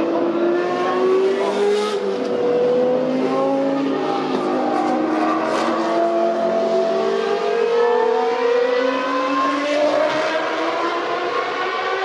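Formula One car engine running at high revs, its pitch climbing steadily as it accelerates, with a sudden drop in pitch about two seconds in and again near ten seconds as it changes gear.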